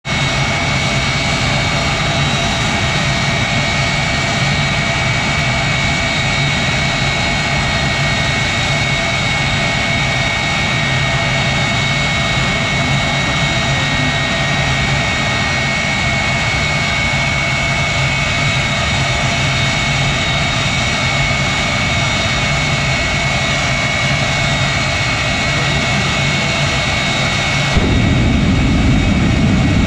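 Jet engine of a jet-powered Chevy drag truck running steadily with a high turbine whine. About 28 seconds in, a burst of flame lights at the rear and the sound jumps to a sudden loud, low rumble.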